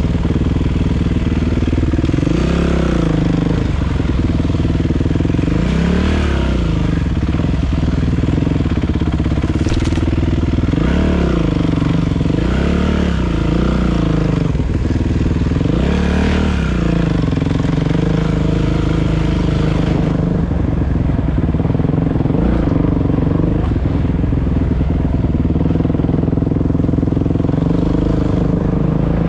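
Kawasaki KX450 dirt bike's single-cylinder four-stroke engine, heard from on the bike as it is ridden, revving up and dropping back again and again as the throttle is worked. It then settles to a steadier pitch for the last third.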